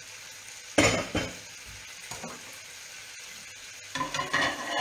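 Pans frying with a steady sizzle on a gas hob. A plate is handled, with one loud clatter of crockery about a second in and a run of clinks near the end.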